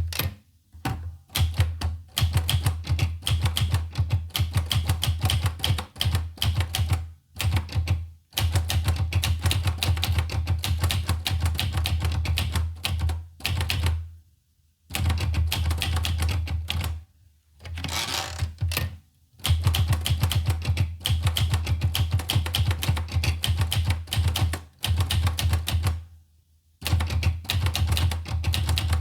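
Olivetti Lettera 25 manual portable typewriter being typed on: fast runs of key strikes, broken every few seconds by short pauses.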